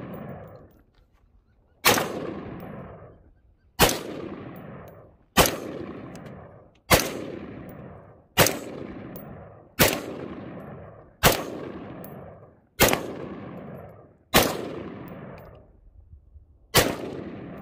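Budget-built AR-15 rifle firing 55-grain PPU ammunition in slow, steady semi-automatic fire: ten shots about one and a half seconds apart, each trailing off in a long echo. The rifle cycles through the string with no stoppages.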